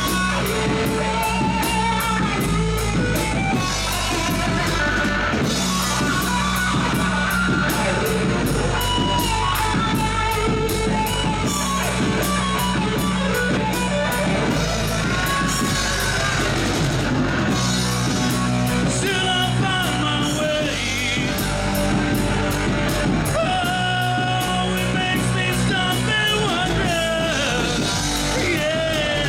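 Live rock band playing: electric guitar, bass guitar and drum kit, with a man singing, most plainly in the second half.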